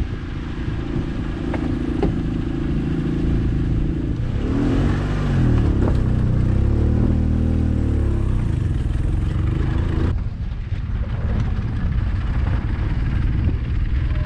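Car engine running while driving along a rough dirt track, its pitch rising and falling a few times in the middle as the throttle is worked, with a few knocks from the bumps. The sound changes abruptly about ten seconds in.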